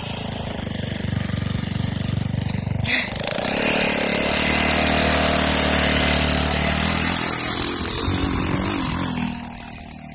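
GY6 single-cylinder four-stroke engine of a go-kart buggy running steadily, then revving up about three seconds in and holding higher revs for a few seconds before easing back down.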